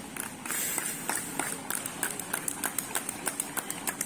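Rhythmic hand clapping of sharp, evenly spaced claps that speed up from about three to about five a second, keeping time for the pulling team.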